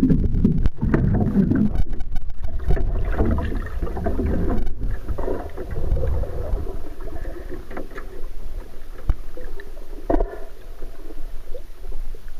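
Muffled underwater rumble and sloshing heard through a submerged camera, heaviest in the first few seconds, with scattered sharp clicks, two of them about 9 and 10 seconds in.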